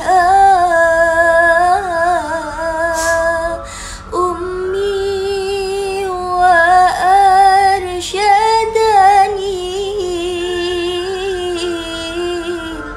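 A woman singing a slow song with long, wavering held notes and sliding ornaments, with a brief break about four seconds in.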